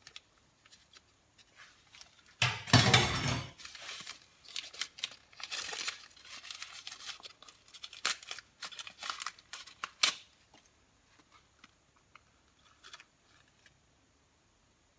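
A paper tea-bag sachet being torn open, with a loud rip a couple of seconds in. Crinkling and rustling of the wrapper follows for several seconds, ending with a sharp click about ten seconds in.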